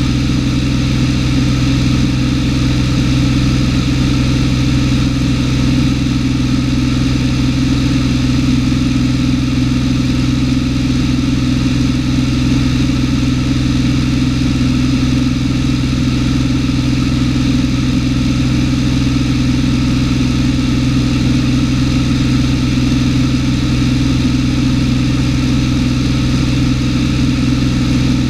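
Cessna 210's six-cylinder piston engine and propeller running steadily in flight, heard from inside the cabin: a constant low hum with a set of steady tones above it.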